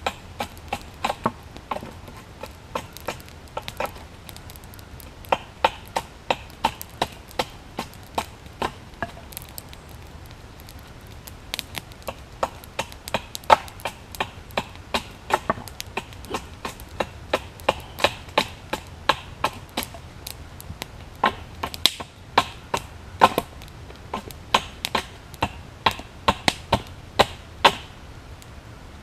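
Axe chopping down the edges of a hickory bow stave to rough it into a bow shape: a steady run of sharp wooden chops, about two a second, with a pause of a couple of seconds about a third of the way in.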